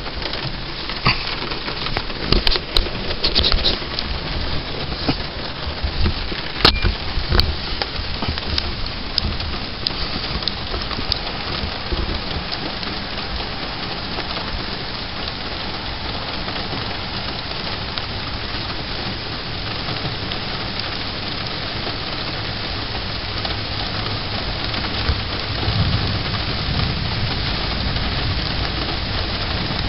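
Heavy rain falling steadily in a thunderstorm, with many sharp drop impacts over the first several seconds. A low rumble builds near the end.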